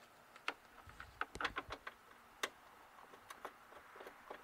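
A few faint, scattered clicks and light taps, several in quick succession about a second and a half in, with a soft thump just before them.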